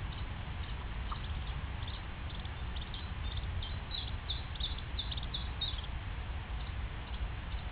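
Mandarin duckling peeping: a quick run of short, high peeps in the middle, over a steady low rumble of background noise.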